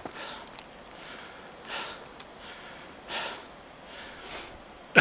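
Breathing close to the microphone, in short airy breaths about a second and a half apart.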